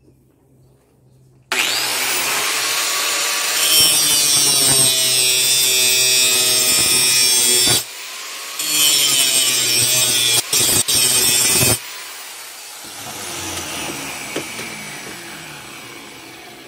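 Angle grinder grinding down the bevel of a steel knife blank. The grinding starts abruptly about 1.5 s in, breaks off briefly a little after halfway and twice more soon after, then stops near 12 s as the grinder winds down and fades out.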